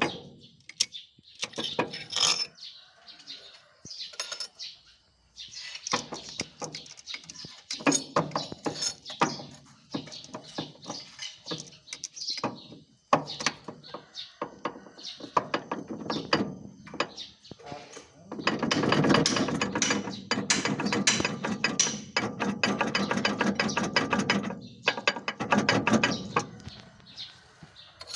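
Tractor transmission and final drive (gardan) clattering and clicking in spells, with the longest and loudest spell a little past the middle. This is the growling noise the title says comes from the final drive when the tractor reverses.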